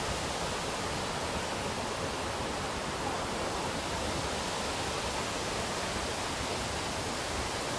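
Steady rush of water from a tall waterfall and the rapids of the rocky stream below it.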